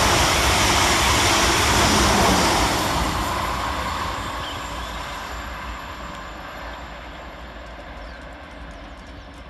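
Two coupled Class 444 Desiro electric multiple units passing fast through a station: a loud rush of wheels on rail for the first two or three seconds, then fading steadily as the train draws away.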